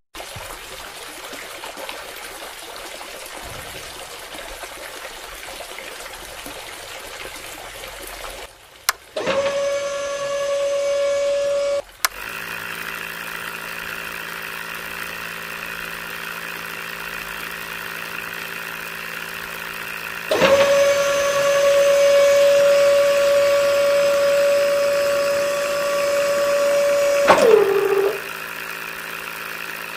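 Water pouring from a thin plastic tube into a small flooded hole while the small electric motors of a miniature borewell drilling rig and water pump run. A high, steady motor whine comes in twice, briefly about nine seconds in and for about seven seconds from two-thirds through, dropping in pitch as it stops near the end.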